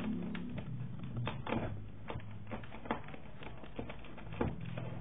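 Sony Bravia TV remote control handled and its buttons pressed with the fingers: a dozen or so irregular, sharp clicks and taps.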